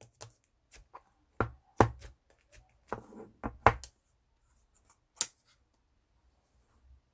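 Pink slime being squished and pressed by hand, giving irregular sharp clicking pops: a cluster between about one and a half and four seconds in, and one more loud pop about five seconds in.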